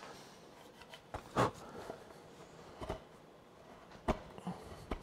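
Hand chisel paring waste wood from the inside of a dovetail joint: a few short, sharp clicks and scrapes, the loudest about a second and a half in.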